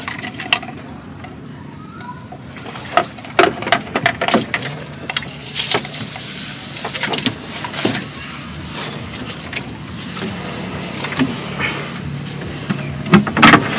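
Fish traps being handled at the water's edge: a run of sharp knocks and clatters with some water splashing, over a steady low hum.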